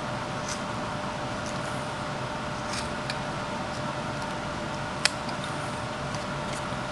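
Carving knife slicing into a wood blank in short, scattered cuts as a tail is thinned, with one sharp click about five seconds in, over a steady background hum.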